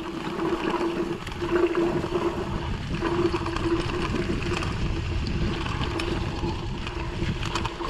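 Mountain bike rolling over a rough track: tyres rumbling and frame rattling, with wind noise on the action camera's microphone. A steady whine runs underneath, breaks briefly about three seconds in, and a few sharp clicks come near the end.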